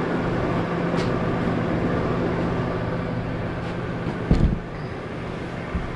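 Steady motor hum with a rush of air, and about four seconds in a heavy thump as the MDF subwoofer enclosure is handled over the router table, with a few lighter knocks near the end.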